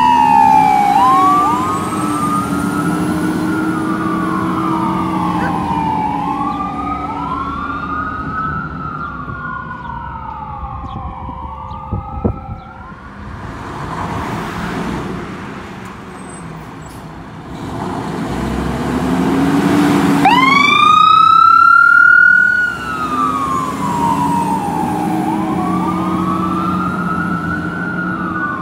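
Fire engine siren wailing in slow repeated rises and falls over the rumble of the engine. The siren dies away about twelve seconds in, with a sharp knock. Around twenty seconds in, a siren winds up loudly again and goes back to wailing.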